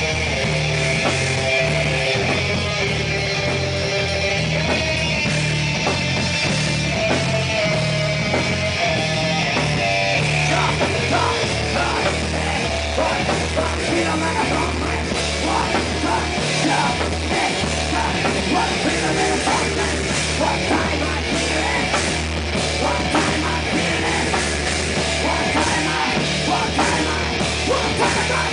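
Heavy metal band playing: electric guitar, bass guitar and drum kit. A held melodic guitar line stands out over roughly the first ten seconds, with steady drumming throughout.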